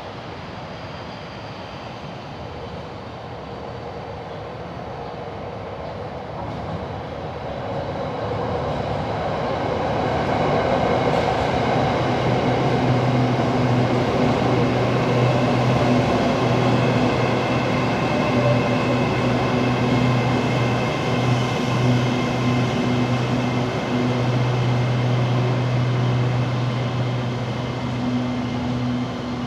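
Hitachi AT-100 electric multiple unit pulling into the station. Its running noise grows louder over the first ten seconds or so, and a motor whine falls in pitch as the train slows along the platform. A steady low hum carries on to the end.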